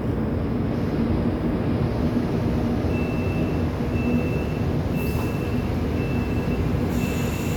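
Songsan Special Elevator lift with a steady low rumble and hum. About three seconds in, a high electronic beep starts repeating about once a second.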